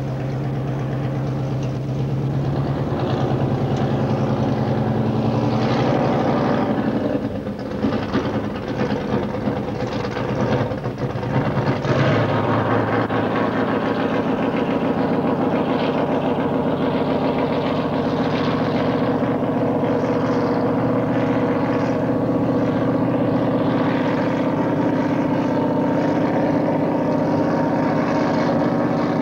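Racing powerboat engines running at high speed as the boats pass, a loud, steady engine drone. The sound gets rougher for a few seconds before the engine note changes about twelve seconds in.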